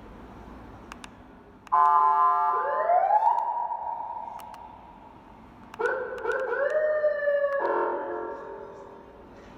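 American-style electronic police siren from a 200-watt vehicle siren amplifier and horn speaker, sounding in two bursts. The first is a short buzzy horn tone that turns into a rising wail, holds and fades out. About four seconds later comes a second burst of stepping, gliding siren tones that drops lower before fading.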